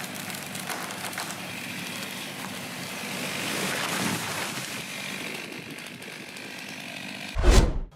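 Chainsaw running and cutting, growing louder around the middle, with one loud, heavy thump near the end.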